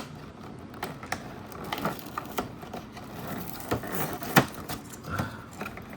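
Irregular clicks, taps and light scraping from handling the holiday calendar's cardboard packaging and a collectible coin. The sharpest click comes about four and a half seconds in.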